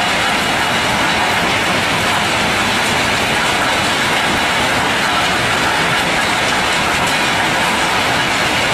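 Stone-crushing machinery running with rock inside: a loud, steady, dense rattle with no let-up.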